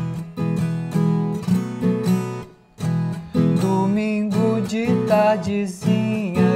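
Viola caipira, the Brazilian ten-string folk guitar, strumming chords in a cururu rhythm, with a short break about two and a half seconds in. From about halfway, a sliding, wavering melody line rises above the chords.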